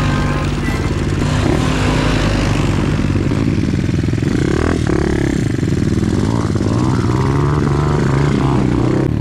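Pit bike engine revving up and down while riding, its pitch rising and falling again and again.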